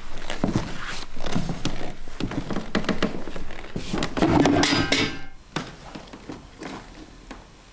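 Knocks and thuds on a wooden stage floor as a plastic mop bucket and a mop are handled, with a brief ringing rattle about four seconds in; it goes much quieter after about five and a half seconds.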